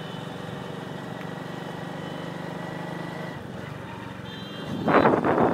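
Motorcycle engine running steadily at road speed, its note falling away about three seconds in. A louder, irregular burst of sound comes in near the end.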